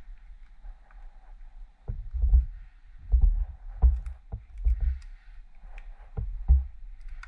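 A run of dull low thumps and knocks, about seven of them, starting about two seconds in and stopping near the end.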